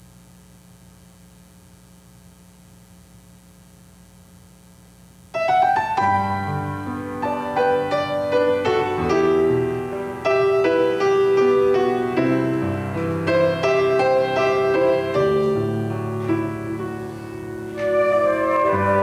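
A faint steady hum, then about five seconds in keyboard instrumental music starts suddenly and plays on with held chords and a melody line.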